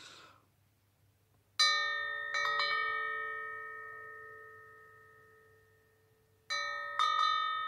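Woodstock Chimes Dharma Cowbell wind chime, its clapper knocked against the metal bell by hand. The bell rings with several tones at once: one strike about a second and a half in, then two quick ones, the ringing fading away slowly over about four seconds, then three more strikes near the end.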